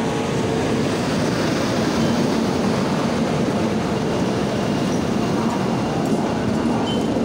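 Passenger train hauled by a WAP7 electric locomotive running past along a station platform: a steady, even rumble of the locomotive and coaches on the rails, with a low hum running through it.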